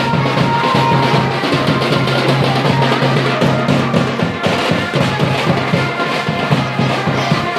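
Loud festival music with heavy, steady drumming.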